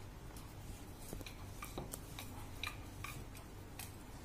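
Faint, irregular clicks and taps from a wooden rolling pin and rolling board as stuffed potato paratha dough is rolled out and turned by hand. A low steady hum sits underneath.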